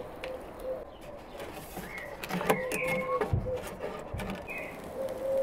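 Outdoor ambience of birds calling, with a dove's low cooing repeating throughout. From about two seconds in there are a few sharp clicks and two dull knocks.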